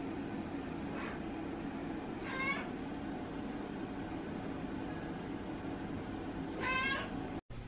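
A house cat meowing three times: a faint short meow about a second in, then two louder, longer meows, one around two and a half seconds in and one near the end.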